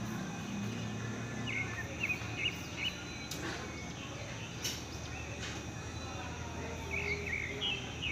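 Outdoor yard ambience: short high bird chirps in two bouts, about a second and a half in and again near the end, over a low steady hum, with a couple of sharp clicks in between.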